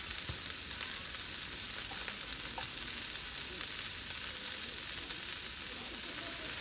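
Sliced beef sizzling steadily on a hot grill pan over a portable gas burner, with a few light clicks of metal tongs as pieces are turned and added.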